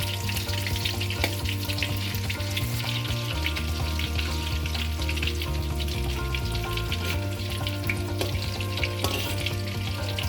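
Cornflour-and-egg-coated chicken pieces deep-frying in hot oil in a kadai, a steady dense crackling sizzle as the pieces are turned over.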